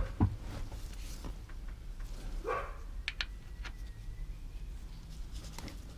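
Light clicks and knocks of a 13mm socket and hand tools being handled, with a short vocal sound about two and a half seconds in.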